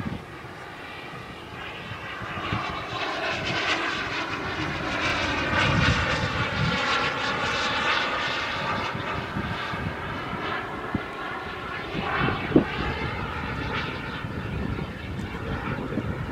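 KingTech K-45G2 model jet turbine on an RC jet in flight: a steady whooshing jet whine that swells over the first few seconds and sweeps slowly in pitch as the plane passes. There is one short knock about three quarters of the way through.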